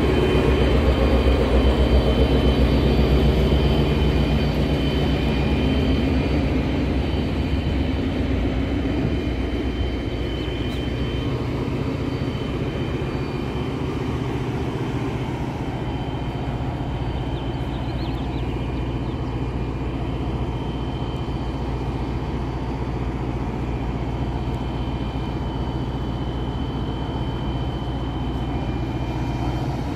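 Siemens Charger SC-44 diesel-electric passenger locomotive running at a station: a continuous engine drone with a thin steady whine above it, loudest in the first few seconds and then settling to an even level.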